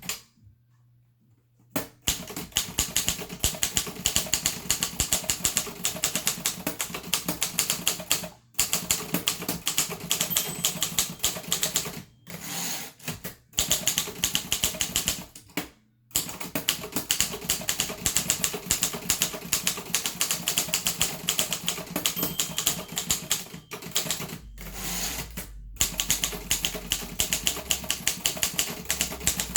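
Harris Visible No. 4 typewriter being typed on: quick runs of sharp keystroke clacks broken by brief pauses. It starts after about two seconds of quiet.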